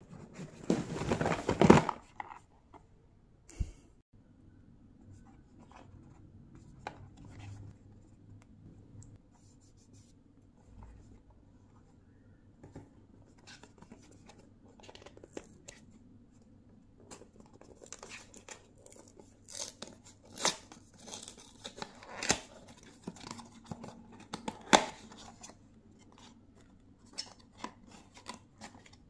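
Small cardboard blind box handled and opened by hand: a burst of rustling and knocking as boxes are rummaged through in a bag, then quiet handling with scattered clicks and scrapes, and a run of sharp tearing and cracking sounds about two-thirds of the way through as the box's seal and flap are torn open.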